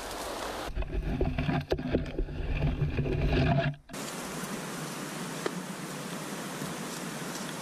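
Steady rush of a fast river flowing, starting after a cut about four seconds in. Before that, an uneven low rumble with a few knocks.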